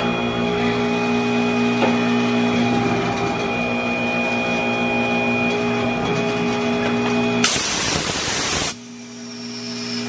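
Tire-changing machine running with a steady electric hum while a tire is mounted on the rim; about seven and a half seconds in the hum stops and a loud hiss of compressed air lasts about a second.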